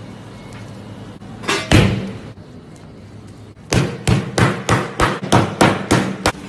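Meat being struck on a cutting board: two heavy thuds about one and a half seconds in, then about ten sharp blows in quick succession, roughly four a second.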